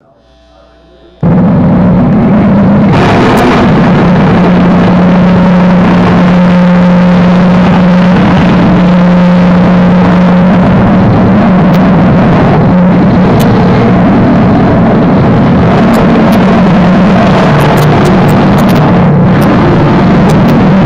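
Harsh noise performed live on a floor of effects pedals: after a faint second it cuts in abruptly as a very loud, distorted, clipping wall of noise over a heavy low drone, with sharp crackles scattered through the last few seconds.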